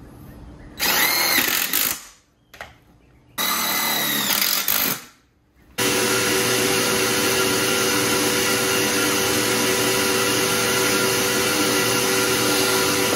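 Cordless DeWalt drill boring through a metal mounting bracket: two short runs with the motor speeding up and slowing down, then a long steady run at constant speed that cuts off abruptly at the end.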